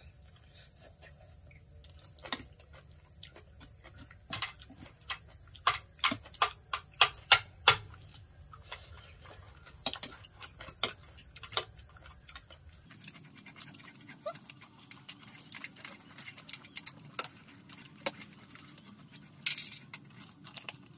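Eating sounds: a run of short, sharp clicks and crunches from chewing green papaya salad and from a fork and spoon working in the dish, coming about two a second at their loudest and thinning out in the second half.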